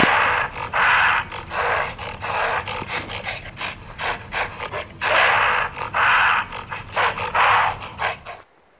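Loud animal calls in a string of rough, noisy bursts, bunched at the start and again about five seconds in, over a low steady hum. They cut off suddenly near the end.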